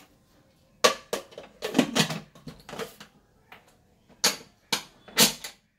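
Pressure cooker lid being fitted and closed and its whistle weight set on the vent: a run of sharp metal clicks and clanks, about eight over five seconds.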